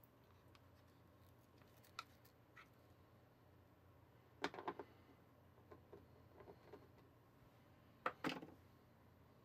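Near silence broken by a few faint clicks and two short bursts of scraping as a utensil spreads marshmallow fluff onto a graham cracker.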